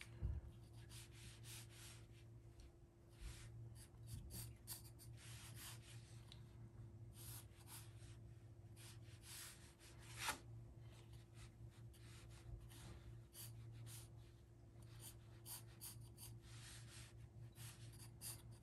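Pencil sketching lightly on paper: faint, short scratchy strokes repeating throughout as the rough guide shapes are drawn.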